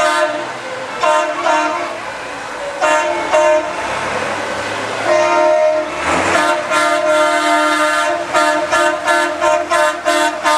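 Truck air horn sounding a series of blasts: a few separate blasts, a long one about five seconds in, then a run of quick short toots near the end.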